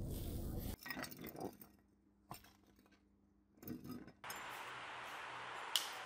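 A short scraping noise at the start, then small metal parts clinking and tapping on a wooden bench in a few brief bursts, then a steady hiss with one sharp click near the end.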